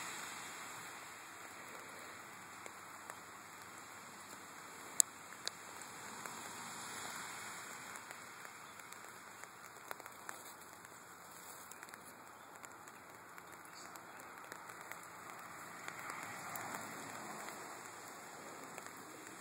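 Light rain falling steadily, an even patter and hiss, with one sharp click about five seconds in.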